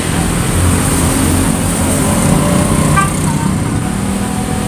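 Road traffic with a motor vehicle's engine passing close by. The low engine hum is loudest from about one to three seconds in.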